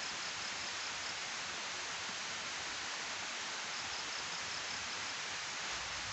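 Steady rushing hiss of water pouring down a weir's sloping spillway into the channel below. A faint, high, evenly pulsed chirping comes twice over it.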